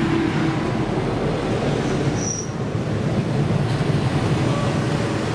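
A train running on the rails with a steady rumble.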